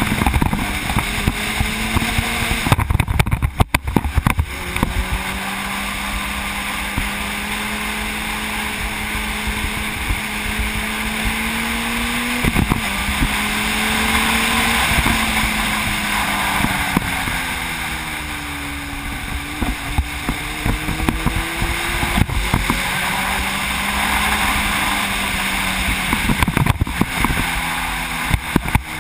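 Sport motorcycle engine running at speed, its pitch rising slowly, dropping off around the middle and climbing again, with wind noise on the microphone.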